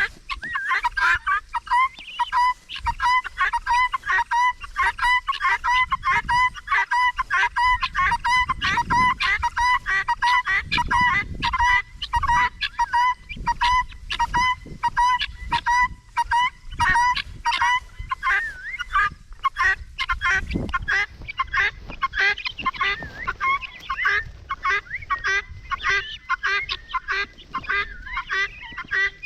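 A flock of guinea fowl calling in a continuous, rapid chatter of short repeated notes, many a second.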